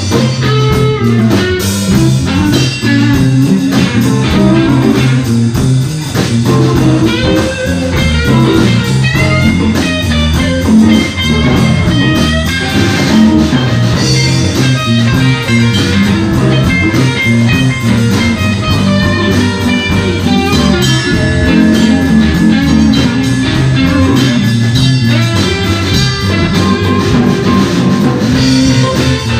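Live blues band playing an instrumental passage: a lead electric guitar plays bending, sliding notes over electric bass and a drum kit, with no singing.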